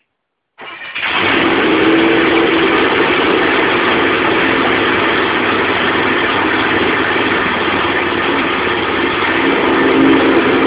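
A boat's 460 big-block V8 starts about half a second in and settles into a loud, steady run. The engine has just had its timing set, its ignition upgraded to an MSD Blaster 2 coil and its carburettor rebuilt.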